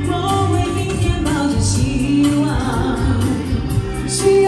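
A woman singing into a microphone over amplified music, a live vocal performance through stage speakers.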